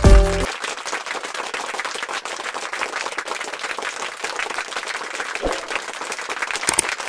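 A short music phrase cuts off about half a second in. It is followed by steady applause, many hands clapping in a dense patter.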